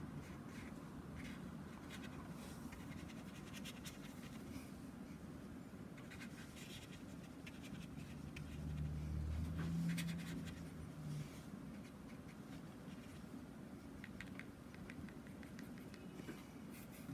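A watercolour brush scratching and stroking across textured watercolour paper, in short runs of quick strokes with pauses between. For a couple of seconds about halfway through, a low hum rises over it and is the loudest sound.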